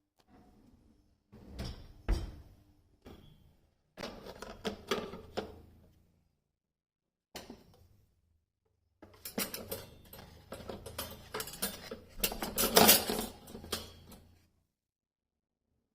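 Dishes and cutlery clinking and clattering in several separate bursts, with the loudest clatter near the end.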